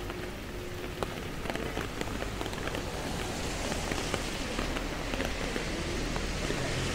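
Steady rain hissing on a wet city pavement, with scattered drops ticking; the hiss grows a little louder from about halfway through.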